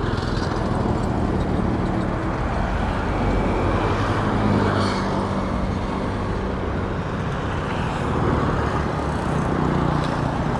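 Highway traffic going past: a steady road noise with low engine hum that swells as vehicles pass, about four seconds in and again near the end.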